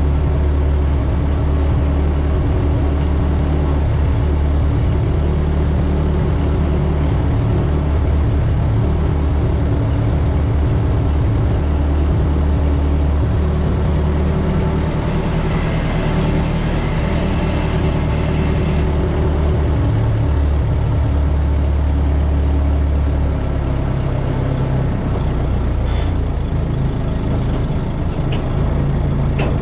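A large engine running steadily with a low drone. A hissing noise joins it for a few seconds about halfway through.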